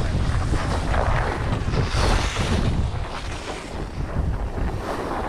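Wind buffeting the microphone while skiing downhill, with the skis hissing and scraping over packed snow in swells as they turn.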